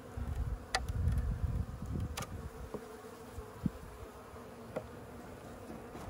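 Honey bees humming steadily over an open hive, with a few sharp clicks and knocks as a hive tool pries at the wooden frames.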